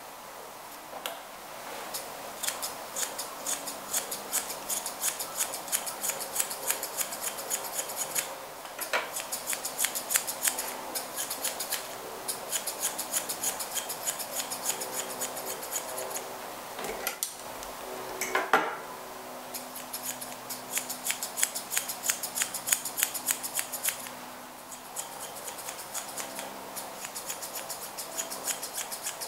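Steel grooming scissors snipping a Maltese puppy's facial fur: quick runs of crisp snips, several a second, broken by a few short pauses. About two-thirds of the way in, one short sound stands out louder than the snips.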